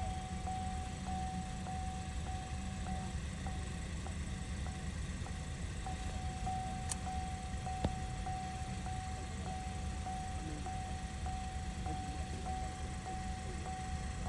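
An electronic chime rings over and over, about once every half second, as one steady pitch, over a steady low hum. It fades for a couple of seconds partway through, and a sharp click and then a knock come about seven and eight seconds in.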